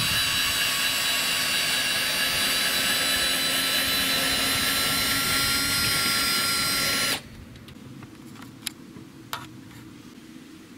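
Cordless drill driver spinning the screw of a car's factory scissor jack, lowering the car: a steady motor whine that stops abruptly about seven seconds in, followed by a couple of faint clicks.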